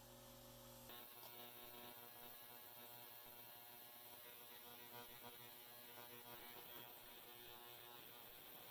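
Ultrasonic cleaner running a cleaning cycle: a steady electrical hum with a hiss above it, cutting in about a second in.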